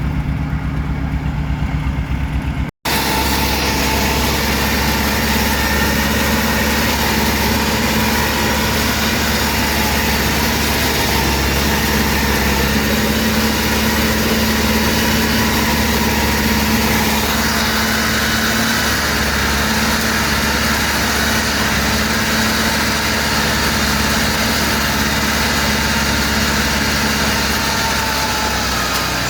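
Heavy machine's engine running steadily at a constant speed, with low engine tones under a broad mechanical hiss. The sound cuts out for an instant a little under three seconds in, then carries on unchanged.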